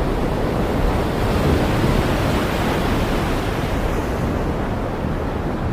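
Heavy rain pouring steadily, a loud, even rushing hiss.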